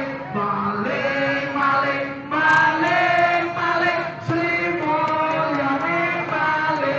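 A crowd of voices chanting together in unison, in long held notes that step up and down in pitch.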